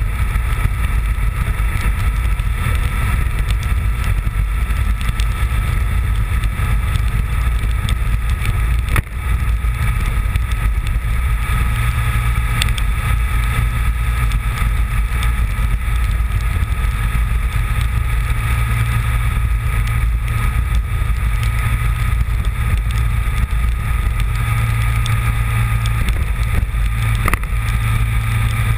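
Honda VFR750 motorcycle's V4 engine running at a steady cruise under a heavy, even low rumble of riding noise. There is a single brief knock about nine seconds in.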